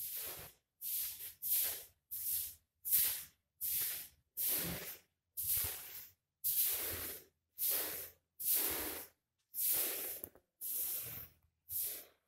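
A person breathing heavily close to the phone's microphone, about a dozen hissing breaths roughly a second apart.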